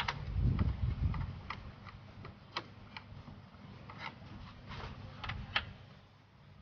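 Irregular small clicks and ticks of fingers working the plastic clips and screws of a car's radiator top cover, with a low rumble in the first second.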